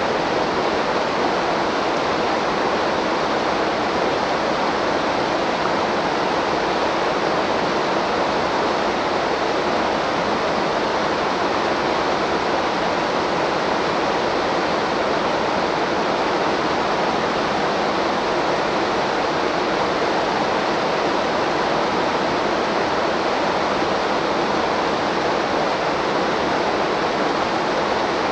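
Waterfall on a river: steady, unbroken rush of falling water.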